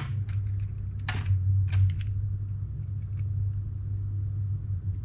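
Steady low hum with a few sharp small clicks, bunched about one to two seconds in and one more near three seconds, from a Shimano Stella FE spinning reel being handled as a replacement handle is fitted.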